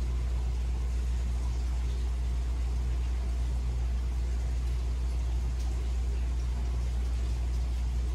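Steady low mechanical hum with a faint hiss above it, unchanging throughout.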